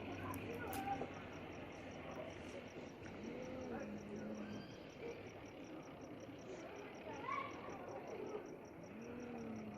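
Domestic cats in a fighting standoff, growling and yowling at each other: long, low, drawn-out yowls that rise in pitch and then hold, one about three seconds in and another near the end, with shorter higher cries between. A steady, fast, high-pitched pulsing runs behind them.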